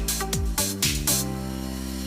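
Background electronic music: a driving kick-drum beat that drops out after about a second into a sustained chord under a rising swell.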